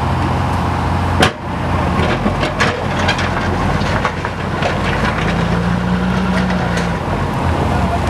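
Tata backhoe loader's diesel engine running under load as its front bucket pushes soil and rocks, with a loud bang about a second in and scattered knocks of stones. The engine note steps up to a higher steady tone for a couple of seconds past the middle.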